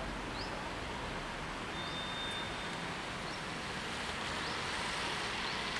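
Steady rushing outdoor background noise, with faint short high chirps every second or so and a brief thin whistle-like tone about two seconds in.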